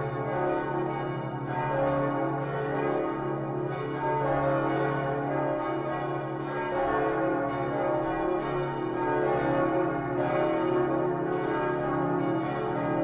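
Many large swinging church bells of the Utrecht Dom tower ringing together, their largest bronze bells cast by Geryt van Wou in 1505, hung on straight headstocks. Their strikes overlap continuously in a dense, unbroken peal with a deep hum underneath.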